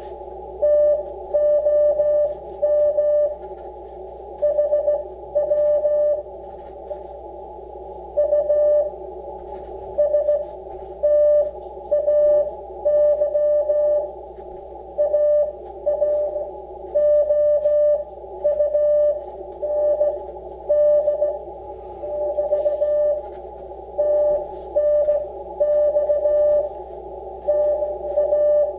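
Morse code (CW) received on an Icom IC-7300 HF transceiver: a single tone near 600 Hz keyed on and off in dits and dahs over a hiss of band noise, hand-sent by the other station on a straight key.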